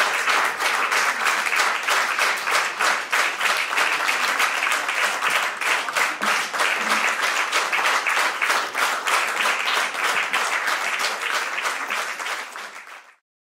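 Audience applauding, dense and even, fading out near the end.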